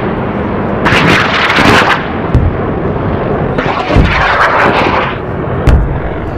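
Crackling electric-spark and thunder sound effect: a loud, dense noise that swells twice, with three sharp cracks each carrying a low boom.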